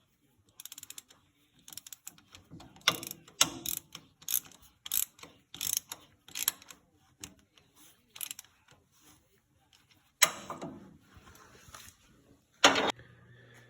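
A 3/8-inch ratchet clicking in a quick series of short strokes, about two clicks a second, as a pipe plug is snugged into a tractor's PTO housing. It is followed near the end by two louder clatters.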